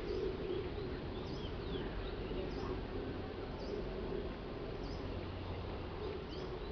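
A bird chirping over and over, one short high call about every second, over a low steady hum.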